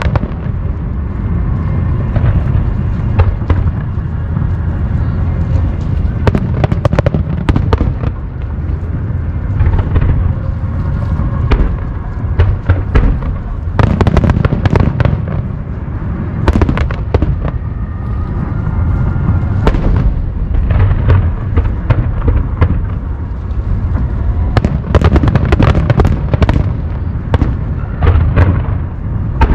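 Aerial fireworks shells bursting in quick succession, with sharp cracks and booms over a continuous low rumble. The bursts come thickest around the middle and again near the end.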